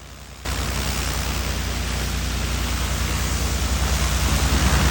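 Hot-water pressure washer blasting moss out of paver cracks through a turbo nozzle: a loud, steady hiss of spray over the low steady hum of the machine's engine. The spray jumps in loudness about half a second in.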